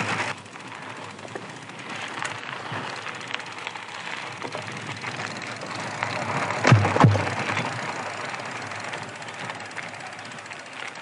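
Fat-tyre electric mountain bike riding over a rough dirt trail: steady tyre-on-dirt and wind noise with small rattles, and two heavy thumps in quick succession about seven seconds in as the bike jolts over bumps.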